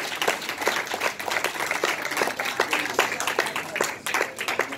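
Audience applause, many hands clapping.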